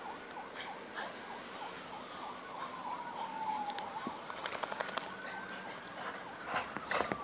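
Emergency-vehicle siren wailing, its pitch slowly falling and rising again. A few sharp clicks and taps cut across it, in a cluster about four and a half seconds in and louder near the end.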